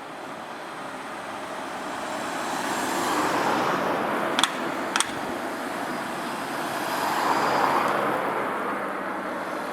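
Road vehicles driving over a railway level crossing, two of them swelling up and fading away with tyre noise. Midway, two sharp metallic clacks about half a second apart as a car's front and rear wheels hit the rails.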